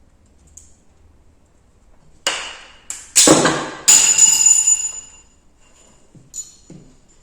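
Parts of a Flecha Model 14 spring air rifle's mechanism flying out under spring tension, taken apart without a spring compressor. A clatter, then two sharp metal strikes, the second leaving a metal part ringing for about a second, then a few light taps near the end.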